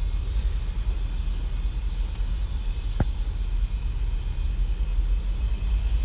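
Steady low rumble in the background, with one sharp click about halfway through.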